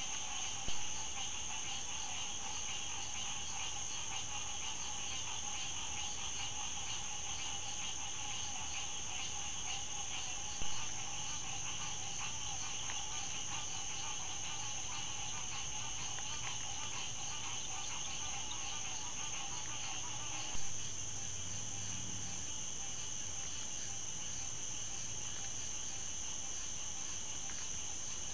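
Night chorus of crickets and other insects: steady high trilling at several pitches. Three brief pops, about a second in, about 11 s in and about 21 s in, mark the joins between separate trail-camera recordings, and the chorus changes a little at each.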